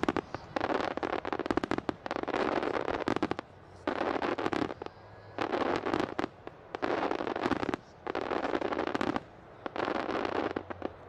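Aerial firework shells with crackling stars, fizzing into a dense spray of crackles about seven times in a row. Each bout lasts about a second, with short gaps between them.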